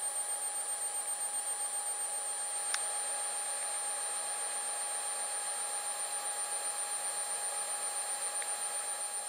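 Small electric cooling fans running: a steady hum with a constant whine, its level fluttering quickly and evenly. One faint click about three seconds in.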